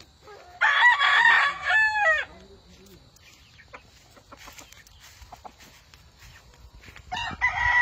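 A gamecock rooster crowing twice: one full crow about half a second in, and a second starting near the end.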